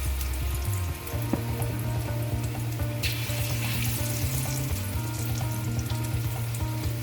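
Batter-coated chicken pieces deep-frying in hot oil in a kadai, a steady sizzle.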